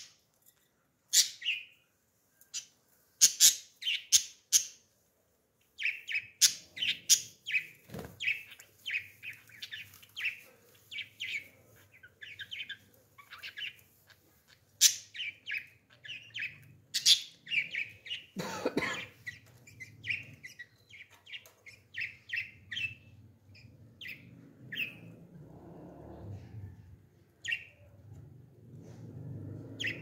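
Budgerigars chirping: short, sharp chirps, a few at first, then coming thick and fast from about six seconds in, thinning out near the end.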